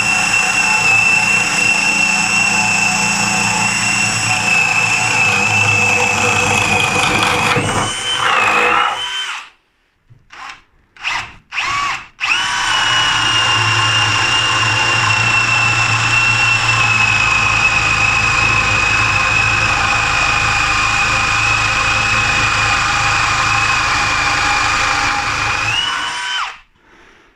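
Bosch GSB 18V-150 C cordless brushless drill boring with a 32 mm spade bit, its motor whining steadily under load. Near eight seconds the pitch rises and it stops. A few short bursts follow, then it drills again for about fourteen seconds before the pitch rises and it stops near the end.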